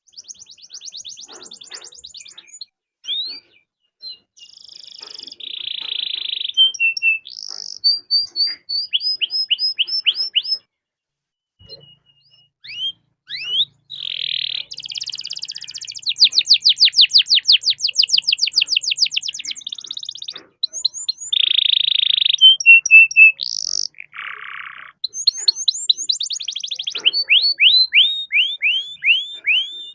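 Domestic canary singing: fast runs of repeated high notes and trills, including a long, dense rolling trill near the middle, with a brief pause a little before it.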